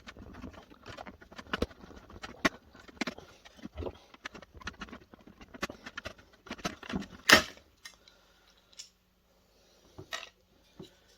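Hard plastic and small metal parts of a projector clattering and knocking as it is pulled apart by hand: many irregular clicks and taps, with one sharp knock about seven seconds in, then a quieter spell broken by a couple more knocks.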